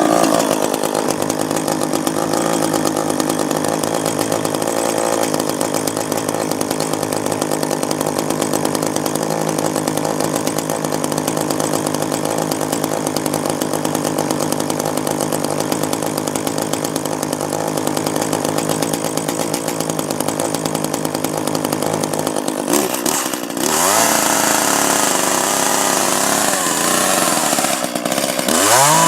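Echo two-stroke chainsaw engine running just after a cold start, left to warm up at a steady idle. About 23 seconds in it dips briefly, then revs up to a faster run, and it revs up again near the end.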